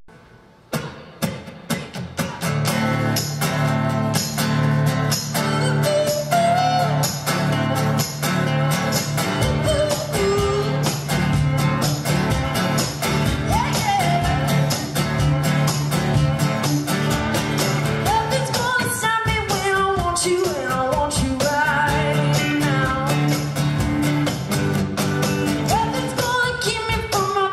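Live band with acoustic and electric guitars and a cajon keeping a steady beat, coming in about a second in. A woman's lead vocal joins a few seconds later.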